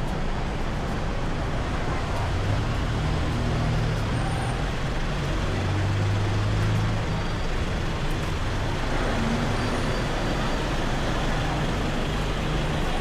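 Road traffic noise with the low hum of a vehicle engine, loudest from about three to seven seconds in.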